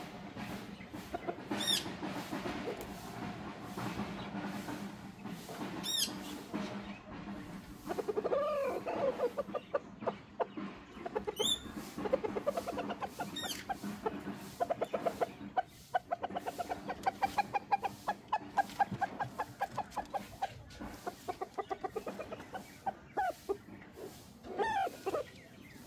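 Chickens clucking in long, rapid runs of clucks, with a few short, sharp high chirps.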